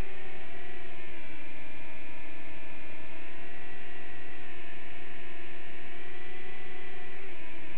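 DM007 quadcopter's motors and propellers whining steadily in flight, recorded through the drone's own camera; the pitch wavers a little near the end as the throttle changes.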